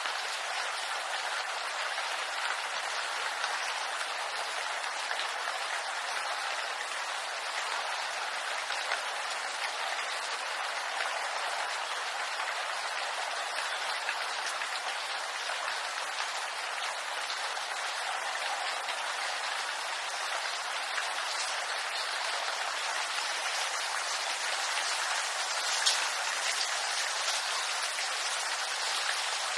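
Steady rain falling in a bamboo grove, a dense patter of drops with one sharper drop hit near the end.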